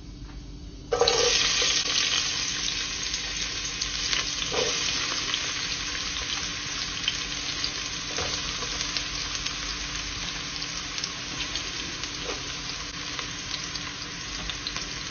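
Chopped red onion dropped into hot sunflower oil in a pot: a sudden loud sizzle about a second in, easing into steady frying, with a few faint knocks.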